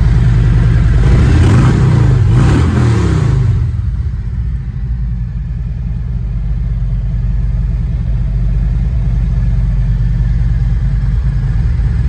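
2020 Harley-Davidson Road Glide's Milwaukee-Eight 107 V-twin running. It is revved up and back down about a second in, then settles back to a steady idle.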